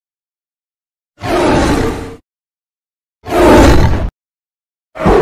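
Creature roar sound effects: two separate roars of about a second each with dead silence between, and a third starting near the end.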